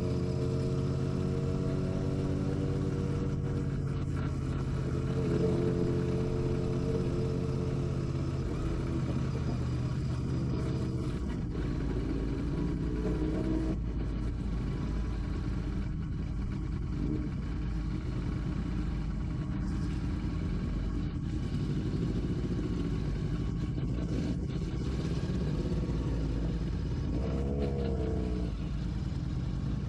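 Royal Enfield Classic 650's parallel-twin engine running while riding, holding a steady note for the first ten seconds or so, then changing pitch with throttle over a rumbling low end, with a brief rise in revs near the end.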